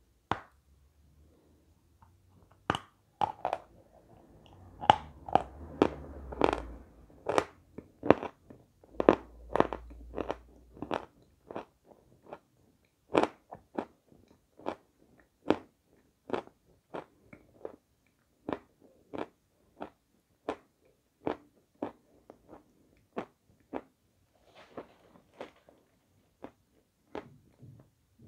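Close-miked chewing of a lump of white edible chalk: a long run of sharp, crisp crunches. They come thick and fast for the first several seconds, then settle into single crunches a little under a second apart, with softer wet mouth sounds near the end.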